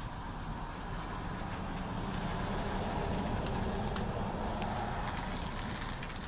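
Steady low rumble of a running engine, swelling slightly in the middle, with faint light ticks of a utility knife blade scraping the matrix off a fiber optic ribbon.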